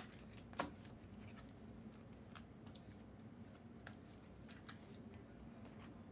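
Faint, sparse clicks and rustles of trading cards and packs being handled, a few seconds apart.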